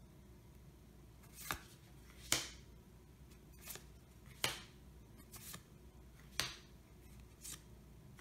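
Yu-Gi-Oh trading cards being flipped through one by one, each card slid off the front of the stack and onto the back with a short, faint swish-snap. There are about seven of these, roughly one a second.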